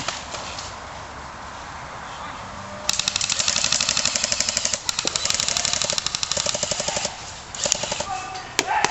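Airsoft electric rifle firing on full auto: a rapid, even rattle of shots that starts about three seconds in and runs for about four seconds, with one short break. A few single sharp cracks follow near the end.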